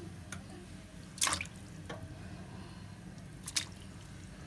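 Chunks of raw beef dropped into a pot of water, plopping and splashing a few times, loudest about a second in and again past three seconds. A steady low hum sits underneath.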